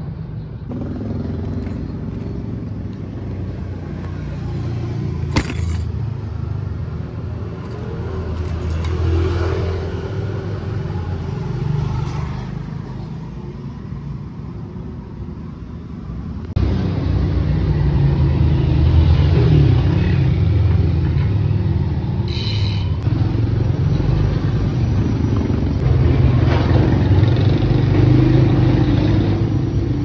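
A low, steady mechanical rumble that gets suddenly louder about sixteen seconds in, with a single sharp click near the start.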